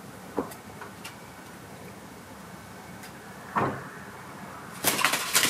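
A house of playing cards collapsing: a quick clatter of many cards slapping down onto each other and the carpet near the end, with a single short thud about a second before.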